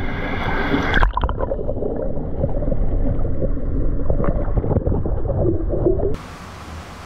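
Water splashing at the aquarium surface, then, about a second in, the sound turns muffled to gurgling and bubbling as the camera is under water. The underwater sound cuts off abruptly near the end.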